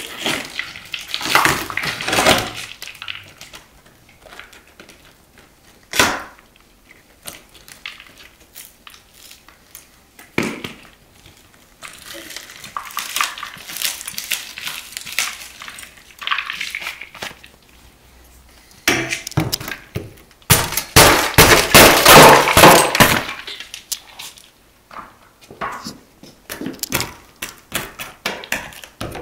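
Shattered windshield glass being pried and broken out with a metal bar. Scattered knocks and scraping build to a loud stretch of crunching, cracking glass about two-thirds of the way in, followed by smaller clicks and crackles.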